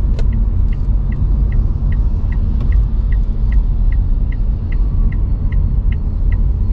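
Steady road and tyre rumble inside an electric car's cabin, with a regular ticking about two to three times a second, like a turn-signal indicator.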